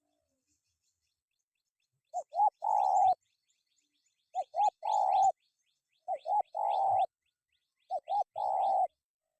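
Spotted dove (tekukur) cooing four times, about two seconds apart. Each call is two short notes followed by a longer, drawn-out coo. Faint high chirps run alongside the coos.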